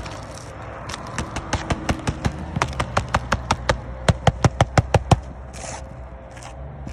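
A run of sharp knocks that speed up and grow louder, reaching about five a second before stopping about five seconds in, over a steady low hum.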